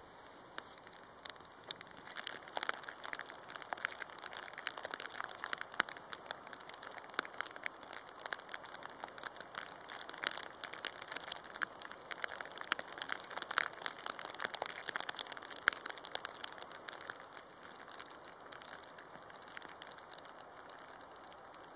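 Heavy rain: a dense, irregular spatter of sharp drop impacts close to the microphone over a steady rain hiss, thinning out over the last few seconds.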